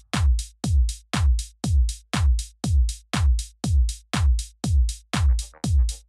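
Electronic dance music with a steady drum-machine kick beat, about two beats a second, the sound dropping away between beats; a melodic layer comes in near the end.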